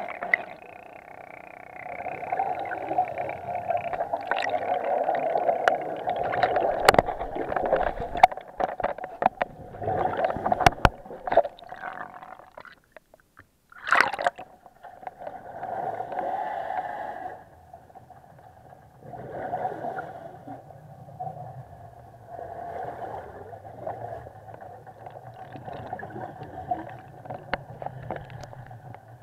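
Scuba regulator breathing heard underwater through an action camera's waterproof housing: bursts of exhaled bubbles every few seconds, with a run of sharp clicks and knocks near the middle.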